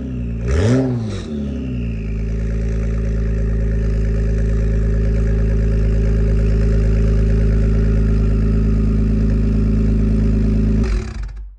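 Acura NSX Type S twin-turbo V6 exhaust through catted downpipes and a quad-tip system, revved in place. A quick blip rises and falls about a second in. The revs then climb and are held steady for about nine seconds before being let off near the end.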